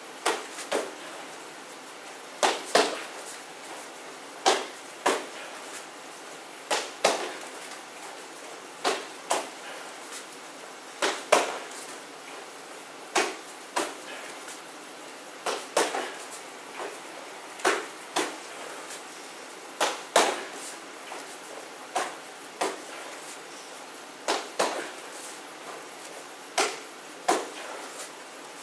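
Punches and knee strikes landing on a handheld striking pad. The sharp smacks come in quick pairs or threes, one set about every two seconds.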